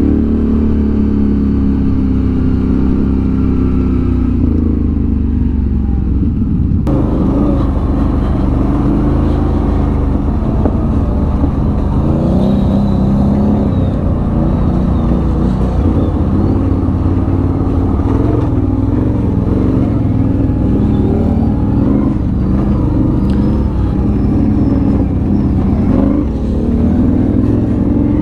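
ATV engine running under way on a mountain trail, its revs rising and falling. About seven seconds in, the sound suddenly turns rougher and noisier.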